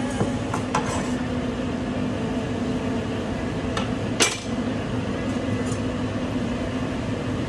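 A kitchen knife clinking against a stainless steel pot and a cutting board: a few light taps in the first second, then one sharp clink a little past four seconds in, over a steady background hum.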